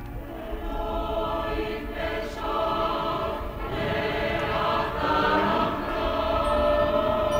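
Mixed choir singing long sustained chords that slowly shift and swell louder toward the end.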